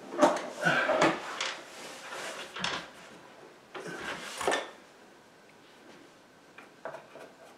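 Wooden false drawer front scraping and knocking against the vanity's cabinet frame as it is shifted and held in place, several short rubs in the first few seconds and one more about four seconds in, then a few faint ticks near the end.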